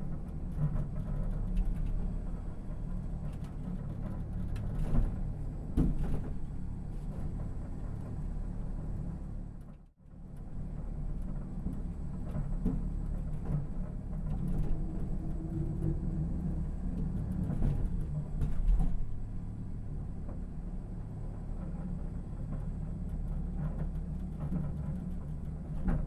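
Low rumble and vibration inside a Busan Blue Line Park sky capsule, a small autonomous car running on an elevated rail track, with a few thumps and knocks from the ride. The rumble drops away almost to nothing for a moment about ten seconds in.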